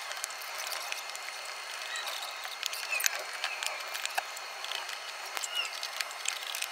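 Stone tile work: scattered clicks, taps and scrapes as stacked quartz stone pieces are set into thinset mortar and a notched trowel scrapes mortar onto the backer board, over a steady hiss.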